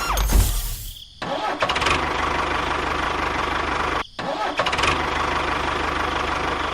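Engine running steadily, cut off briefly twice, about a second in and about four seconds in.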